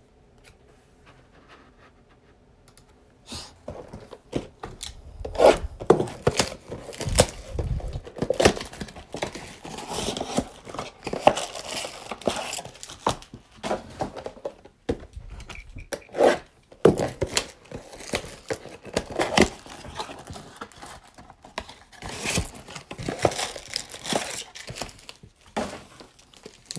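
A trading-card mega box being torn open and its foil-wrapped card packs handled, starting about three seconds in: tearing and crinkling of the box wrapping and the foil packs, in many short irregular crackles and rustles.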